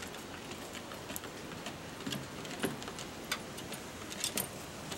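Light, irregular ticking and tapping from a small dog walking on a Petzen DogTread dog treadmill, its claws striking the moving belt.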